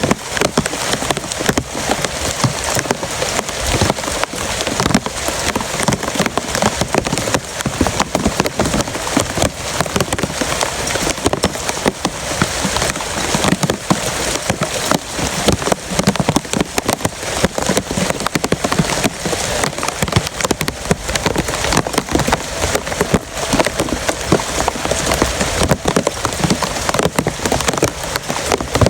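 Heavy rain pouring steadily, a dense patter of drops hitting a surface.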